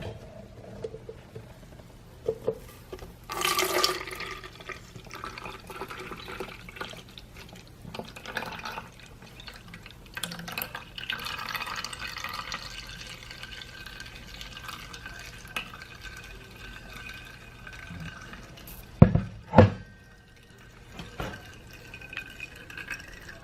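Freshly blended fruit juice being poured through a strainer, liquid trickling and dripping into a container. A clink about three seconds in, and two loud thumps a little before the end.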